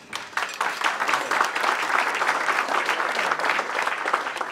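Audience applauding, swelling within the first second and starting to die down near the end.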